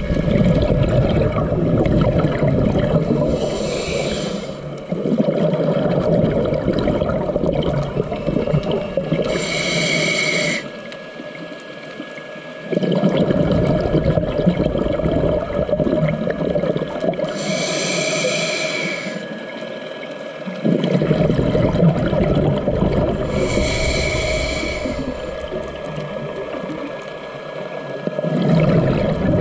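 Scuba diver breathing through a regulator underwater: four slow breath cycles, each a short hissing inhale of about a second followed by a long gurgle of exhaled bubbles.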